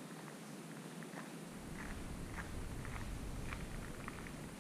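Quiet open-air background on river ice: a low rumble on the microphone comes in about a second and a half in, with faint short ticks scattered throughout.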